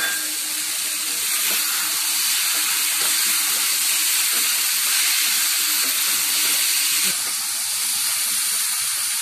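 Carrots, beans and green peas sizzling in hot oil and masala in a cooking pan: a steady hiss.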